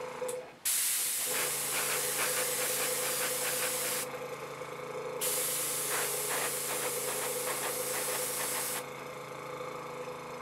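Paasche double-action airbrush spraying thinned acrylic paint: a steady hiss of air and paint in two long passes, with a short let-up about four seconds in, stopping about a second before the end. A steady low hum runs underneath.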